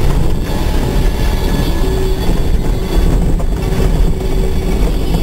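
Mazda Bongo campervan driving over pebbles, heard inside the cab: a loud, steady rumble and rattle of tyres on stones and the van's body, with a steady hum joining about two seconds in.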